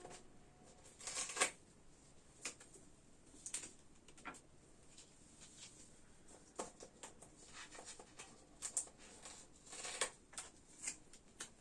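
Faint scattered rustling and small clicks of handling noise, with a few brief louder rustles about a second in and near the end.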